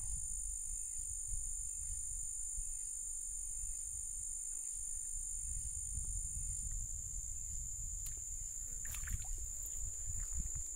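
Steady, high-pitched drone of insects from the creek-side vegetation, over a low rumble.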